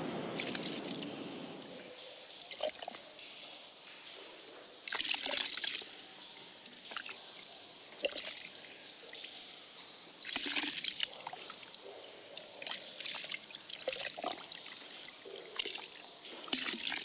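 Liquid poured from a small metal jug, trickling and splashing in several short pours a few seconds apart, with dripping in between.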